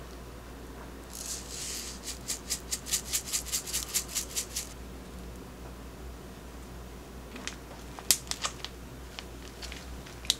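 Sesame seeds being dispensed onto a rice bowl: a short rasp, then a regular run of sharp clicks, about five a second, for roughly two and a half seconds. A few scattered sharp clicks and taps follow near the end.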